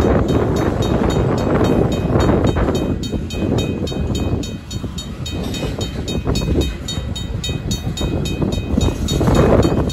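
Tank cars of a freight train rolling past close by: a heavy rumble of steel wheels on the rails that swells as each truck passes, eases off in the middle and builds again near the end. Above it, a mechanical crossing bell rings faintly with rapid, even strikes.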